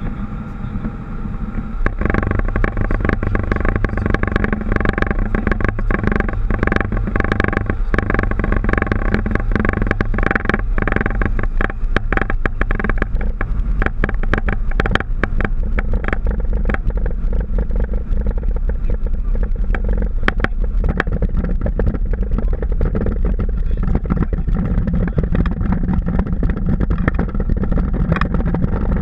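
Boeing 737 jet engines heard from the cockpit, rising suddenly to a loud steady roar with fixed tones about two seconds in, as at takeoff power. Rapid knocks and rattles of the rolling aircraft run through the middle and thin out later on.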